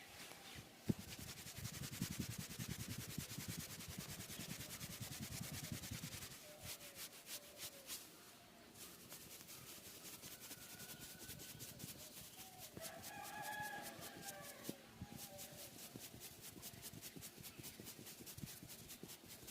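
Hands rubbing and patting over oiled hair and skin during a massage, a rapid run of soft strokes, most intense in the first few seconds. A brief animal call is heard in the background around thirteen seconds in.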